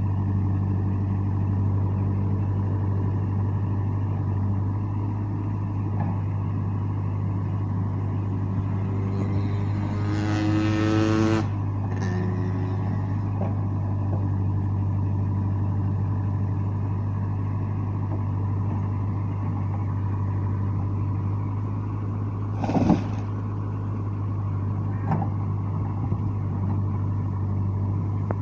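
JCB 3CX backhoe loader's diesel engine running steadily. About ten seconds in it revs up for a couple of seconds and drops back. A single sharp crack about two-thirds of the way through.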